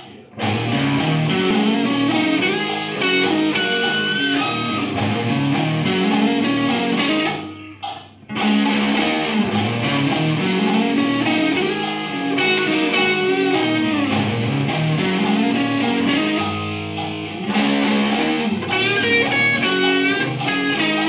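Electric guitar played through an amplifier, a melodic solo of single-note lines over lower moving notes, with a short break about eight seconds in.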